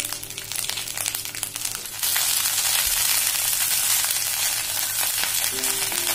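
Cut cluster beans sizzling in a little hot oil in a stainless steel kadhai as they are sautéed and stirred with a spatula. It crackles lightly at first, then turns to a louder, steady sizzle about two seconds in.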